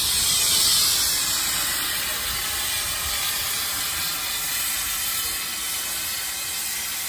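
Steam hissing steadily from a narrow gauge steam locomotive standing at the railway, a little louder in the first second or so, then easing slightly.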